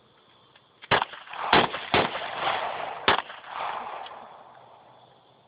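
AR-15 rifle firing four shots at uneven intervals over about two seconds, each shot trailing off in an echo.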